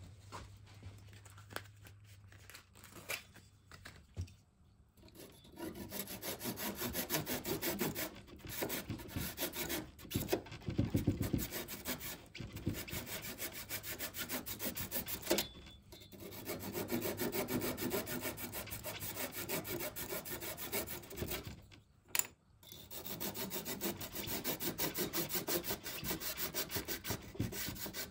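A tool working into wood with a fast, even rasping, in three long stretches broken by short pauses.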